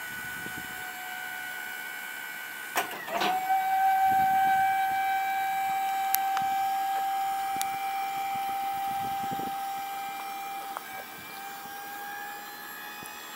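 A small electric motor whining at a steady pitch. Its pitch dips and recovers with a brief clatter about three seconds in, and shifts slightly near the end.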